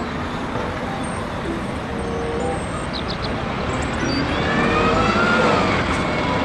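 Single-deck city bus driving through a road junction, its engine running over steady traffic noise and growing louder about four seconds in as it passes close. A short rising and falling whine comes about five seconds in.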